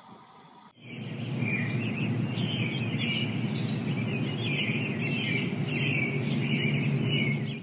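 Small birds chirping rapidly and irregularly over a steady low rumble of outdoor background noise, starting abruptly under a second in.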